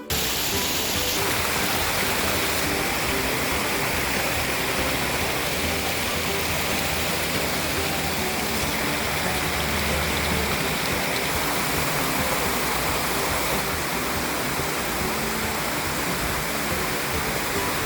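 Steady rushing of stream water, an even noise throughout, with faint music underneath.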